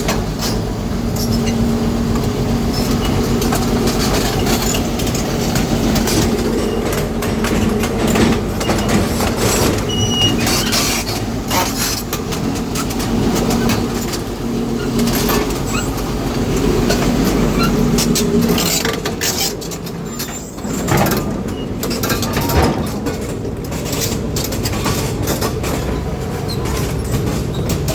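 Excavator working: its diesel engine runs steadily under load with a held hum, while short metallic clanks come and go. The engine note drops about two-thirds of the way through, then picks up again.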